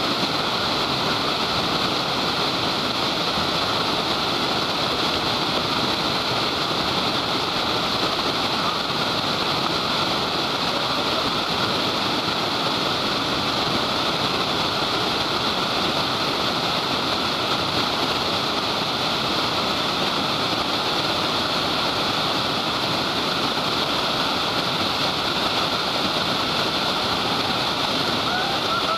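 Whitewater rapids rushing over and around boulders, a steady, unbroken wash of churning river water.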